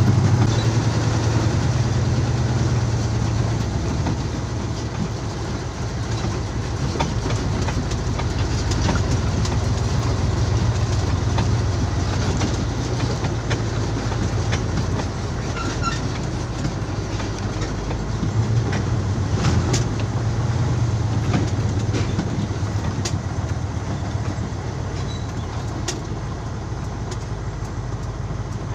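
A truck's engine running at low speed, with a steady low drone under continual rattling and clanking from the truck's body as it rolls over a rough gravel road.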